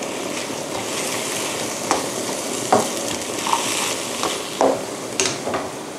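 Black tofu and vegetables sizzling in a wok while a spatula stirs them, with several short scrapes and knocks of the spatula against the pan.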